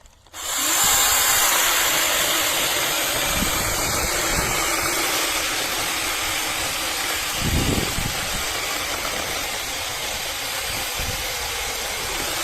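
Cordless brushless mini chainsaw running: its motor spins up with a short rising whine, then runs steadily with a loud hiss of chain noise before cutting off abruptly. A low thump comes about halfway through.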